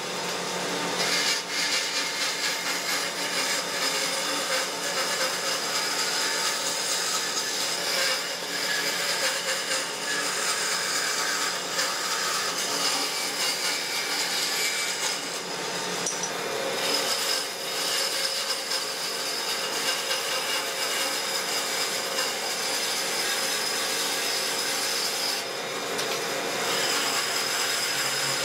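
Band saw running and cutting through pine boards: a steady rasping of the blade in the wood over the hum of the machine, easing briefly a few times between cuts.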